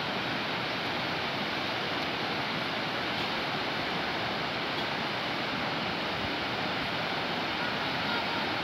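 Whitewater rushing steadily down a rocky river cascade, an even hiss of water with no break.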